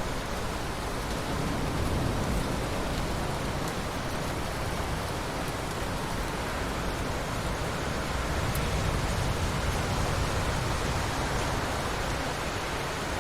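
Steady heavy rain falling in a forest: a dense, even hiss with a few faint drop ticks, swelling slightly in loudness now and then.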